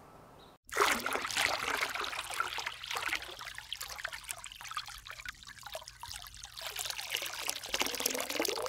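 Rushing, splashing water sound that starts abruptly about half a second in.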